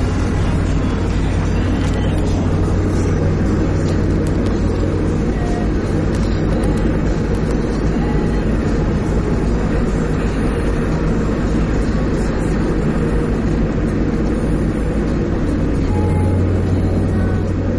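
Steady road and engine noise heard inside a moving car's cabin, a constant low rumble and hum that swells slightly near the end.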